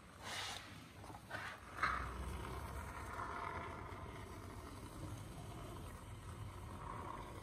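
Aerosol can of expanding spray foam being dispensed through its straw nozzle: a few short spurts of hiss in the first two seconds, then a steadier spray hiss.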